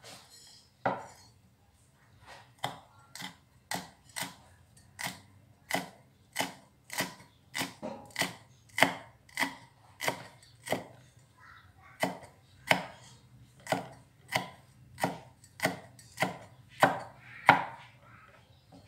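A knife chopping food on a wooden chopping block in a steady run of sharp strokes, a little under two a second.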